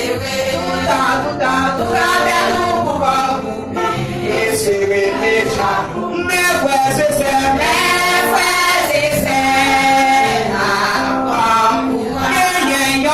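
Church choir singing a hymn, with women's and men's voices together in sustained, melodic lines.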